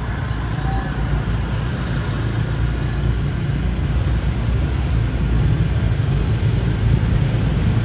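A vehicle engine running with a steady low rumble, growing slightly louder over the few seconds.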